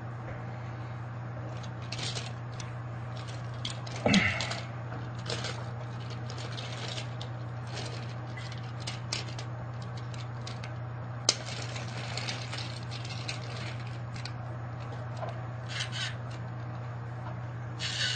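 Light clicks and clacks of hard plastic toy pieces being handled, scattered irregularly over a steady low hum. About four seconds in there is one louder clatter, with a squeak sliding down in pitch.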